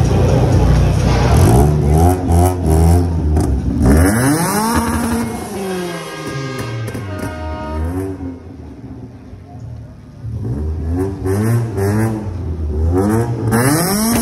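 Lada Samara hatchback's engine being revved in repeated blips, the pitch climbing and falling several times. It settles lower for a few seconds past the middle, then is revved again in quick rises near the end.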